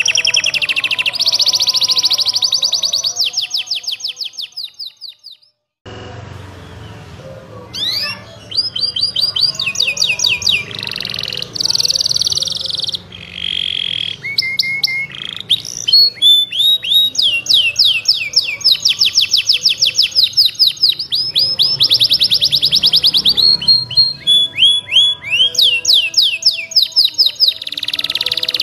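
Domestic canary singing long, fast trills of rapidly repeated chirps and sweeping notes, a full 'gacor' song. The song fades away about four seconds in and starts again after a short gap.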